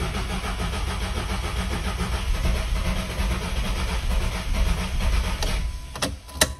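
Volkswagen 1.4 TSI (CAXA) four-cylinder petrol engine running just after being started with a freshly refitted fuel injector. It cuts out about six seconds in, followed by a couple of sharp clicks.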